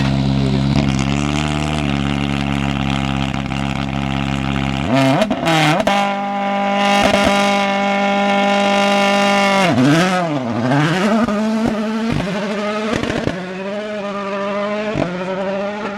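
Rally car engine: a steady low drone, then about five seconds in a sudden climb to a high, held note. Near ten seconds the revs dip and climb again, then keep rising and falling with short breaks between gear changes.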